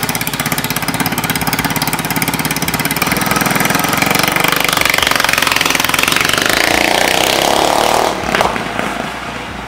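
Mini bike's small single-cylinder engine running with rapid even firing, then revving up as the freshly fitted centrifugal clutch engages and the bike pulls away. The sound fades as the bike rides off, after about eight seconds.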